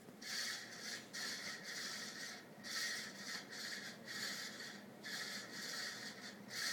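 Fasco Charleston ceiling fan with a stack motor running on high, with a rhythmic rushing noise that swells and fades about three times every two seconds. It is the unexplained running noise the owner suspects may come from the bearings or the capacitor.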